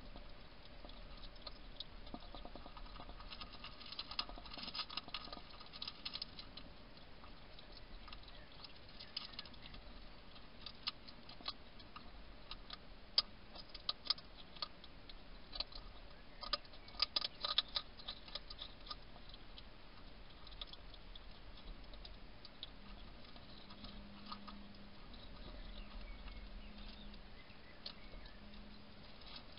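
European hedgehog crunching dry food from a bowl: quick small clicks and crackles in irregular clusters, busiest in short stretches.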